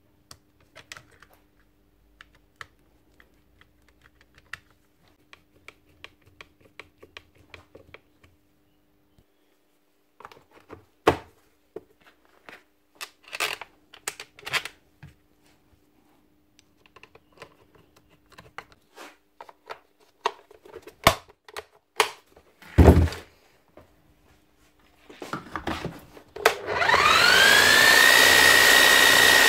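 Clicks and knocks of hand work on a Bosch GSH 11 E demolition hammer's casing and switch, with one loud knock a little before the end. Near the end the freshly serviced hammer is switched on: its electric motor whines up quickly in pitch and settles into a steady, loud run.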